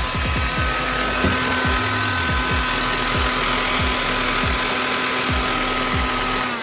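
Electrolux Ergorapido ZB3501 cordless stick vacuum running steadily with a motor whine, its power nozzle's brushroll turning, then switched off at the very end. Background music with a regular beat, about three beats a second, plays over it.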